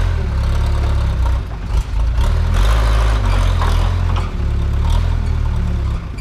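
Case 580 backhoe's diesel engine running loud and steady under working load, its deep rumble dipping briefly now and then, with a couple of harsher noisy passes over the top near the middle.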